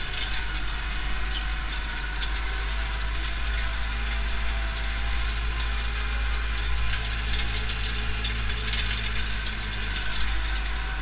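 Pronar 82SA tractor's diesel engine running steadily under load inside the cab while pulling a cultivator through heavy soil, with many small irregular clicks and rattles throughout.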